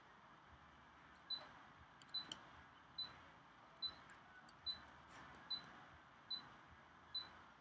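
A faint, high-pitched beep repeating evenly about once every 0.85 seconds, eight times, starting about a second in. There is a light room hiss and a few soft clicks between the beeps.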